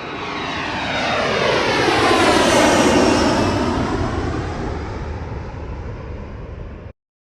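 An airliner flying past, its engines swelling to their loudest about two and a half seconds in and then fading, with a tone that sweeps down and back up as it passes. It cuts off suddenly near the end.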